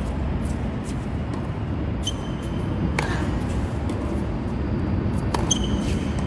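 Tennis practice rally on a hard court: irregular sharp pops of the ball off racket strings and off the court, with a few short high squeaks of tennis shoes. A steady low rumble runs underneath.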